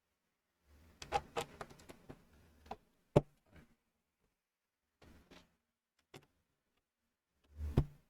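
Small plastic LEGO pieces clicking and clattering as they are handled and fitted together. A run of light clicks comes about a second in, then a sharp click around three seconds, a few faint taps, and another sharp click near the end.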